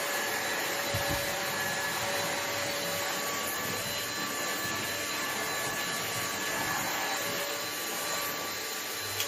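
Vacuum cleaner running steadily, its motor making a dense rushing noise with a constant whine as it sucks up bread crumbs from a seat. At the very end it is switched off and the whine starts to fall as the motor winds down.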